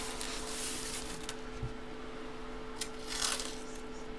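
Rustling and light scraping of a cardboard box and paper being handled on a table, with a couple of small clicks. A faint steady hum runs underneath.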